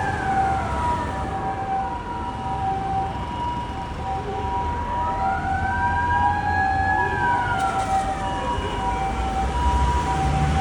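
Japanese emergency vehicles' sirens: a police car's wailing siren sweeps slowly up and down in pitch over an ambulance's two-tone hi-lo 'pee-po' siren, which alternates steadily. Traffic rumbles underneath.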